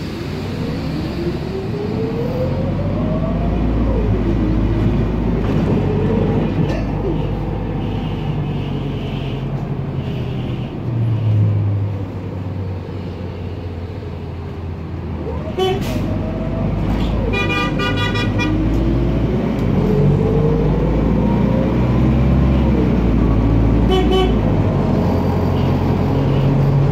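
Inside a Temsa MD9 LE city bus under way: the four-stroke diesel engine drones low while the Allison six-speed automatic transmission whines, its pitch rising as the bus accelerates and dropping at each gear change. A few short buzzing bursts come about two-thirds of the way through and again near the end.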